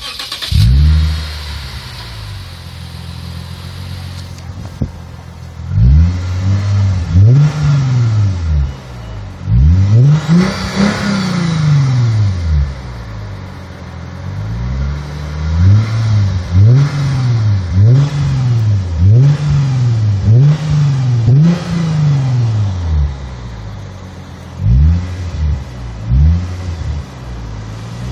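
Lexus IS 350's 3.5-litre V6 running through a Tsudo SP2 dual axle-back exhaust: it flares up just after the start, idles steadily for several seconds, then is revved repeatedly while parked. The revs are short blips that rise and fall, with one longer, higher rev near the middle and a quick run of blips about one a second after it.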